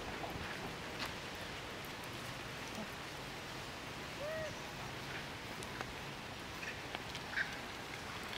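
Quiet outdoor background hiss with faint scattered clicks, and one short animal call that rises and falls about four seconds in.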